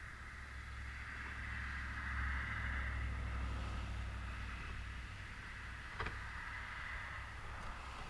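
A vehicle passing at a distance, a low rumble with a hiss of tyre noise that swells to a peak a couple of seconds in and slowly fades. There is a single sharp tap about six seconds in.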